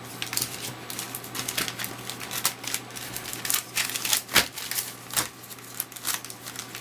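Sealed foil trading-card packs being handled and stacked on a table: irregular crinkling and light clicking of the wrappers, with one sharper knock about four seconds in.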